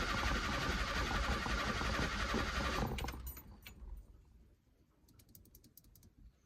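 Fiat 147 starter motor cranking the engine, which does not catch, then stopping about three seconds in. A few faint clicks follow.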